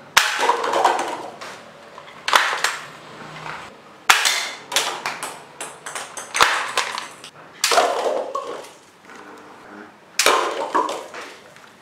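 A series of about six sharp knocks or clatters, roughly two seconds apart, each trailing off in a rattle over about a second.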